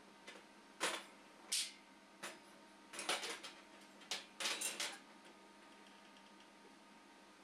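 Gloved hands handling and positioning aluminium sheet parts on the welding bench: a handful of short metallic clinks and scrapes in the first five seconds, then quiet.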